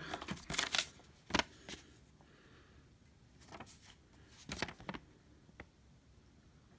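Paper leaflet rustling as it is picked up and handled: several short crinkles in the first two seconds and a few more between three and a half and five and a half seconds in.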